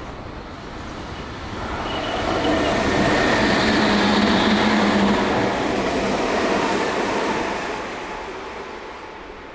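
A Meitetsu electric train going by. Its running noise swells over about two seconds, holds for about five, then fades away near the end.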